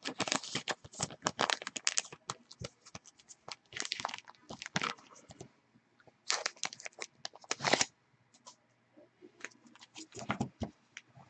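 Thin clear plastic card sleeves crinkling and rustling as a trading card is handled and slid into a sleeve, in several short spells of sharp crackles.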